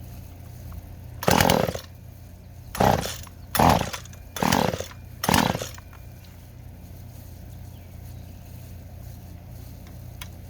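Husqvarna 240 two-stroke chainsaw idling steadily, blipped up to revs five times in quick short bursts in the first half, then settling back to idle, while its carburetor is being adjusted.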